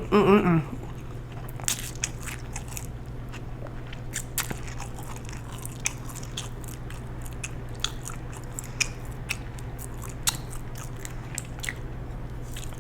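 A person chewing and biting food close to the microphone: irregular crisp crunches and clicks over a steady low hum.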